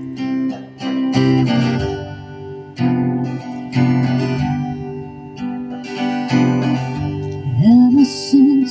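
Acoustic guitar strumming and picking chords as the intro to a country song, with a voice beginning to sing near the end.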